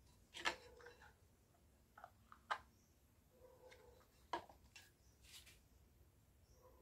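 A few faint, sharp clicks and light knocks as small plastic parts are handled: a plastic base set down on a board and a plastic pipe fitted into it. Otherwise near silence.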